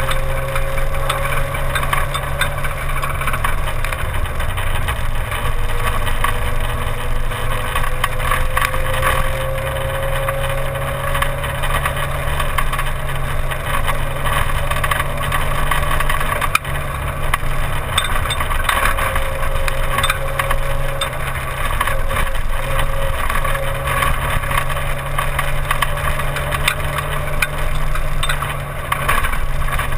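Simca 1000 rally car at speed on a special stage: a steady engine drone with a faint whine that slowly rises and falls, under constant rattling and wind and road noise.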